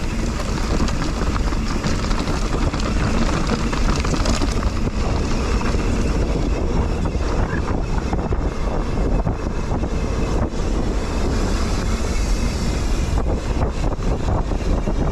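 Steady rush of wind buffeting the microphone of a mountain biker's camera while riding, with the low rumble of the bike rolling along the trail underneath.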